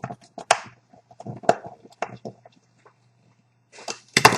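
Small plastic and metal parts being handled: a CCTV video balun with Cat5 cable in its screw terminals. It makes scattered clicks and taps, with a louder clatter just before the end.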